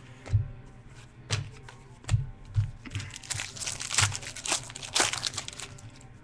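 Stack of baseball trading cards flipped and slid through by hand: a run of quick rustles, snaps and clicks of card stock, with a few soft knocks, busiest in the second half.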